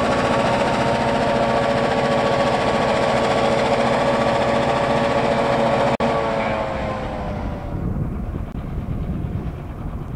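EMD SD9 diesel locomotive's 16-cylinder 567 engine working hard, with a steady whine over the engine rumble. About six seconds in the sound briefly drops out, then the whine falls in pitch and fades and the overall sound gets quieter.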